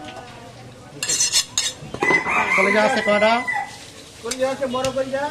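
A knife scraping on a wooden chopping block about a second in, then a loud, drawn-out animal call lasting about a second and a half, followed by shorter calls near the end.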